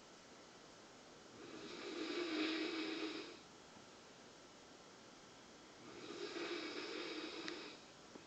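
Snoring: two long, slow snores about four seconds apart, each lasting about two seconds.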